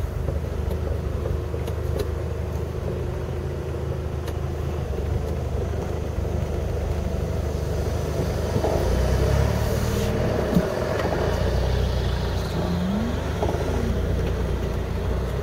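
Off-road 4x4's engine running at low revs as it crawls over a rough track, a steady low drone. It picks up about eight seconds in, there is one sharp knock a couple of seconds later, and short rising engine notes follow near the end.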